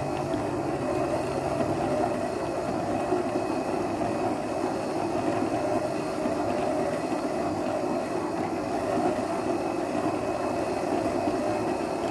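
Electric stand mixer running steadily, kneading flour and ice water into bread dough.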